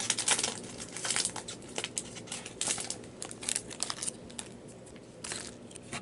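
Foil wrapper of a Topps 2017 Series 1 baseball card pack being torn open and crinkled, a run of crackly rustles that thins out after about four seconds.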